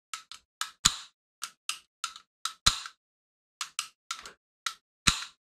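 Airsoft Hi-Capa 2011 pistol's frame mechanism clicking as it is worked by hand: about fifteen sharp metal clicks at an uneven pace, some in quick pairs, three of them louder.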